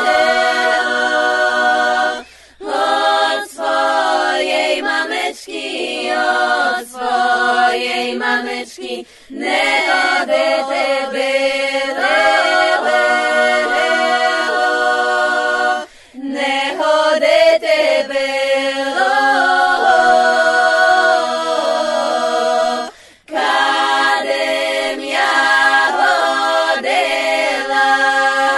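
Background music: an unaccompanied choir, several voices singing held notes in harmony, with brief breaks between phrases about two seconds in, near the middle and about three-quarters of the way through.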